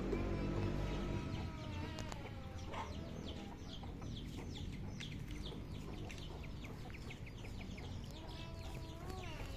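Chickens calling: a long pitched call that drops in pitch in the first few seconds, then a run of short high chirps, a few a second.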